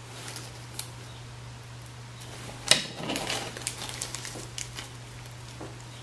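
Handling noises from computer-building hardware: one sharp click about three seconds in, followed by several lighter clicks and taps, over a steady low hum.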